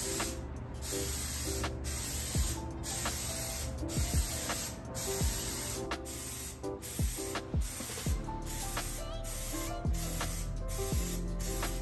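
Aerosol spray can of Kilz primer hissing in short bursts, about one a second, as it is swept across a particle-board shelf, over background music.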